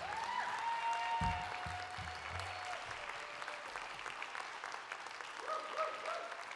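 Theatre audience applauding at the end of a song, clapping steadily throughout, with a few held tones over the applause and some low thuds about a second in.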